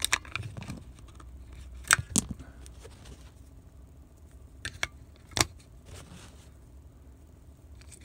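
AAA batteries being prised out of a plastic remote control's battery compartment and handled: a few sharp clicks and taps of battery against plastic, the loudest about two seconds in and another about five and a half seconds in, over a faint low hum.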